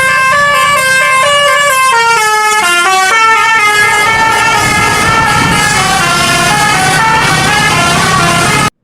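Indonesian bus 'telolet' multi-tone horn (Basuri type) playing a quick melody of stepped notes, with the bus engine running underneath. The horn cuts off suddenly near the end.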